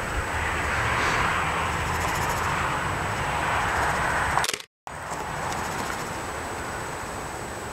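Steady outdoor background noise, a hiss over a low rumble, with a faint steady high tone; it cuts out for a split second nearly five seconds in and then carries on a little quieter.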